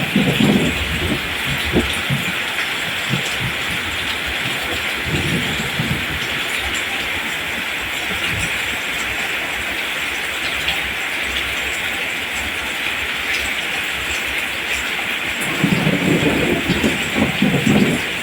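Steady hiss of rain falling on rice plants, with low rumbling swells briefly at the start, about five seconds in, and for a couple of seconds near the end.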